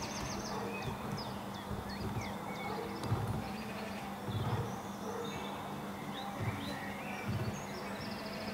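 Outdoor ambience of small birds chirping and trilling in the trees, over a low, uneven background hum.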